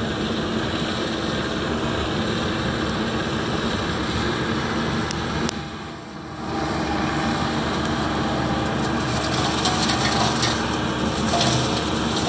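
Flail mower head on a Bobcat compact excavator's arm running and shredding woody brush, over the excavator's diesel engine. The level dips briefly about six seconds in, then the cutting turns loud and crackly from about nine seconds as the flails chew into a bush.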